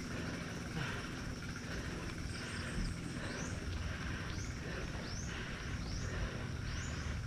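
A mountain biker panting hard on a steep climb: rapid, heavy breaths, a little more than one a second, hyperventilating from the effort.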